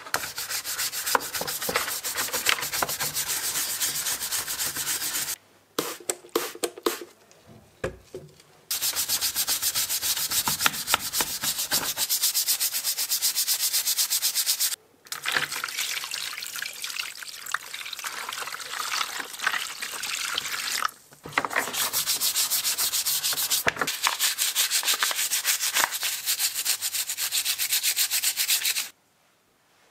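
A hand-held scrubber scrubbing the dirty plastic housing shell of a cordless angle grinder in quick back-and-forth strokes. The scrubbing comes in several long bouts with short pauses between them. In the first pause, a little after five seconds in, there are a few light knocks as the parts are handled.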